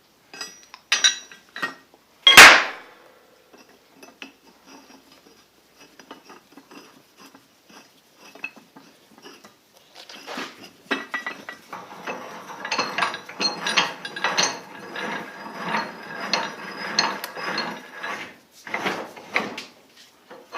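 Steel parts of a post vise clanking and scraping as it is reassembled: a few clinks with one loud clank about two and a half seconds in, then from about ten seconds a long stretch of metal-on-metal rubbing and clinking.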